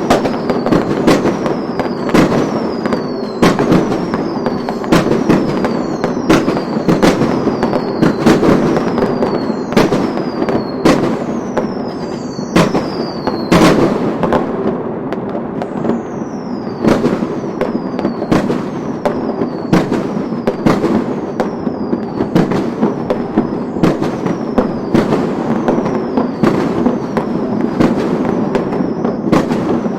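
Chinese fireworks going off in a steady string: sharp bangs about once a second, each with a short falling whistle, over a continuous crackle.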